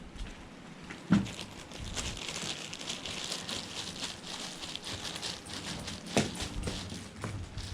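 Gusty wind with rustling, broken by two sharp knocks: one about a second in, another about six seconds in.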